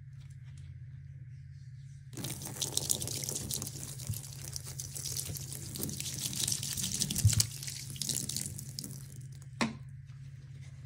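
Liquid cleaner poured from bottles in two thin streams onto sponges in a ceramic sink, splashing and pattering for about seven seconds from about two seconds in, with a brief sharp sound as the pour ends. A steady low hum runs underneath.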